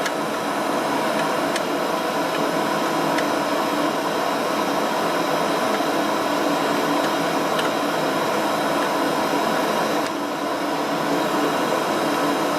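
Vacuum cleaner running steadily with a whining motor while vacuuming dust from a refrigerator's underside; the sound dips slightly about ten seconds in.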